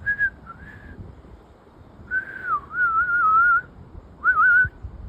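A person whistling a wavering, warbling tune in short phrases. Two short notes come at the start, a longer warbling phrase about two seconds in, and a brief one near the end.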